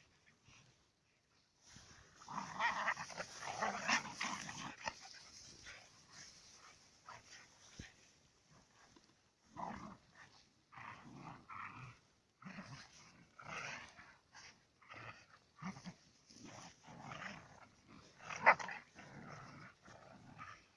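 Puppies growling and yapping in short, irregular bursts, with the loudest, busiest stretch a couple of seconds in.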